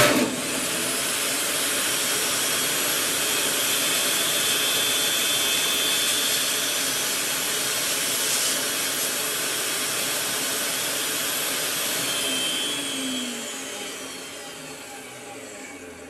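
Benchtop table saw switched on with a sudden jump to full speed, running steadily while a long wooden strip is fed through the blade. About twelve seconds in it is switched off and winds down, its pitch falling as it fades.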